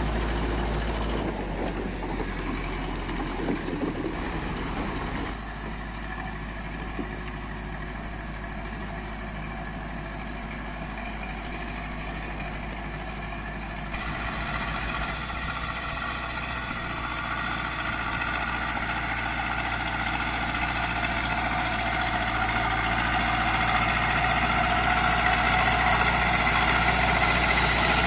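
Zetor 5745 tractor's diesel engine running steadily. About halfway through it grows louder, its note fuller, and it keeps building toward the end.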